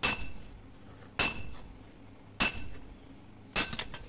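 Hand hammer forging a red-hot blade of truck leaf-spring steel on an anvil: four evenly spaced ringing blows about a second and a quarter apart. The last blow is followed by a few lighter clinks.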